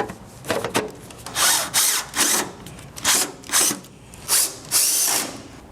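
Power drill-driver run in a series of short bursts, about eight quick spurts, driving in the fasteners of a treadmill's rear roller covers.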